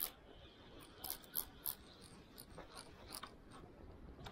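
A run of sharp, irregularly spaced clicks: three clear ones a little after a second in, then fainter ones spreading out.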